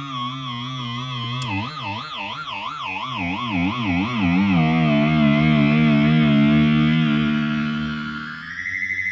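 Electro-Harmonix Poly Chorus pedal on its flange setting with feedback all the way up, making a pitched, wavering electronic whine. The pitch wobbles about twice a second, then settles into a steady drone, and near the end it shifts up to a higher tone.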